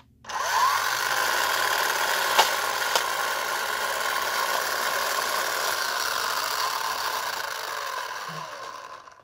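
Battery-powered electric motor in a 1978 toy car track's booster unit running steadily, with two sharp clicks about two and a half and three seconds in, then cutting off near the end. The mechanism is not functioning correctly.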